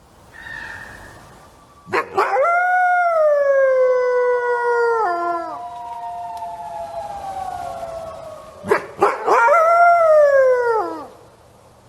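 Wolf howling: a long howl begins about two seconds in and slides slowly down in pitch over several seconds, then a second, shorter howl near the end falls away steeply.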